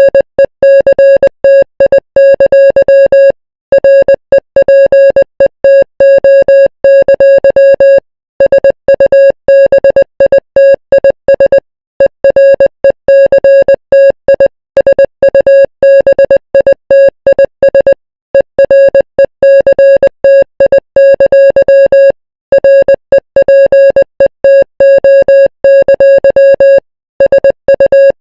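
Emergency alert alarm tone: a loud, buzzy electronic beep of one steady pitch, pulsing on and off rapidly, with brief pauses every few seconds.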